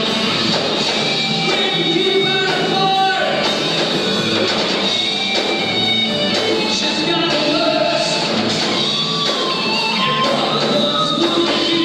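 A metal band playing live: electric guitars and drums with a sung lead vocal over them.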